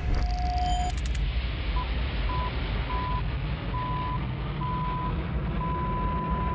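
Jet transport aircraft taking off: a low, steady engine rumble that starts suddenly. Over it a single beep repeats, each beep longer and the gaps shorter, until the beeps nearly run together near the end.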